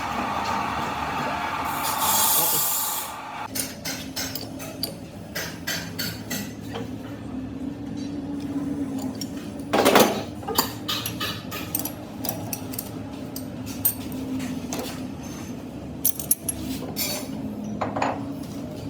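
Metalworking in a repair shop: a machine runs noisily, swells and cuts off about three and a half seconds in, then scattered metal clinks and knocks follow over a steady low hum, with one loud knock about ten seconds in.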